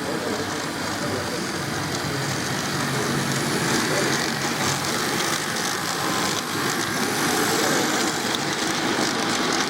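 Model diesel locomotive's sound unit running with a steady engine sound, over a low murmur of voices in the room.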